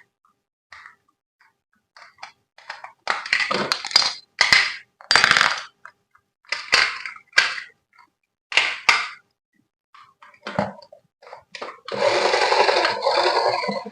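Plastic toy parts and packaging handled: a series of short clacks and rustles. About twelve seconds in, a small electric motor whirs steadily for about two seconds.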